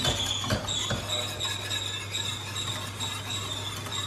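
Wire whisk beating milk in a stainless steel saucepan, its wires clinking and scraping against the metal pan in a steady rhythm, over a steady low hum.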